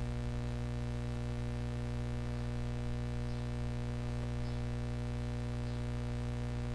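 Steady electrical mains hum: a constant drone with many overtones.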